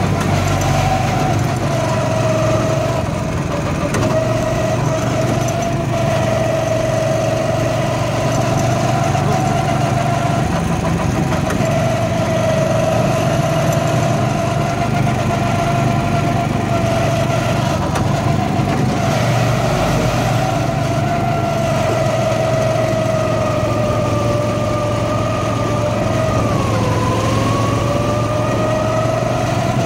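Go-kart's small petrol engine running steadily at speed, its pitch holding level and dipping briefly near the end as the kart slows and then picks up again.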